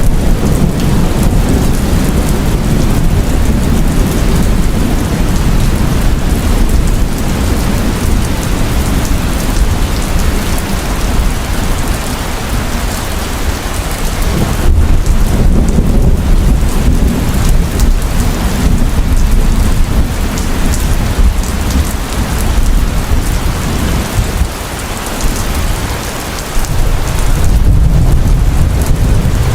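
Heavy rain falling steadily, with deep rolling thunder that swells about halfway through and again near the end.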